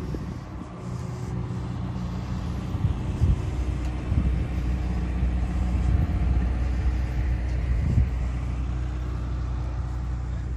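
An engine running steadily at a constant low pitch, with a few short low thumps.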